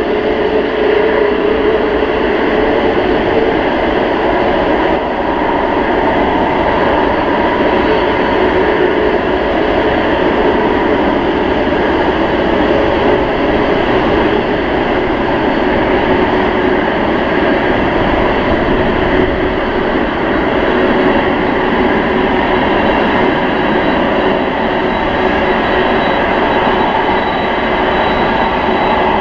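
Airbus A380's four Rolls-Royce Trent 970 turbofans running at taxi power as the jet turns and lines up for takeoff: a steady jet rush with several held whining tones.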